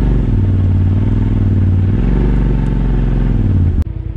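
Polaris RZR side-by-side's engine running on a trail, its pitch falling and rising twice as the throttle is eased and reapplied, then dropping suddenly to a quieter, steadier sound near the end.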